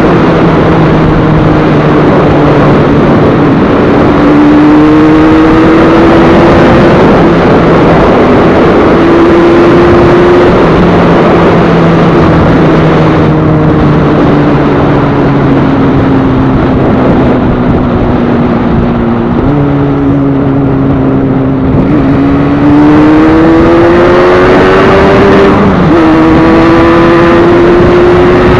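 Yamaha RD350's freshly rebuilt two-stroke twin running on the move. Its note climbs under acceleration and drops sharply at gear changes, with a long easing-off in the middle before it pulls up through the gears again.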